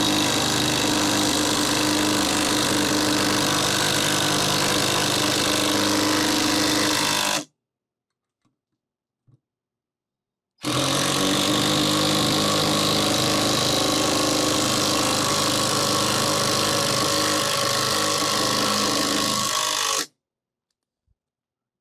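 Hyper Tough 12-volt brushless impact driver driving 4-inch timber screws into a 2x4, its hammering steady under load. It runs until about seven seconds in, goes silent for about three seconds, then drives a second screw until it stops near the end.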